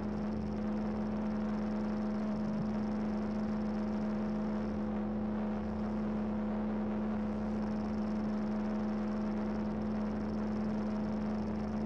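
A steady drone held on one low pitch with several overtones, over a deeper hum and a faint high whine.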